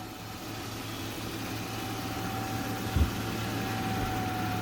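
Vehicle engine running steadily, a low hum with a faint steady whine over it, and one dull low thump about three seconds in.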